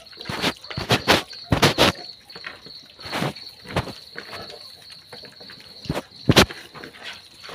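Piglets eating mashed food from a plate held by hand: irregular wet smacks and clicks of chewing and snuffling, the loudest a little after six seconds in. Under them, crickets chirp in a steady high trill.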